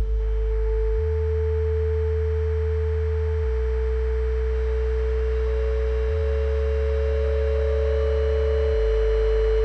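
Ambient electronic music: a steady high sine-like synth tone held over a deep synth bass that alternates between two notes about every two and a half seconds, with a soft hiss above.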